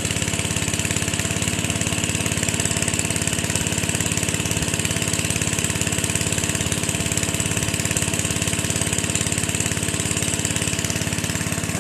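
Small gasoline engine running steadily at a constant speed, with an even rapid pulse.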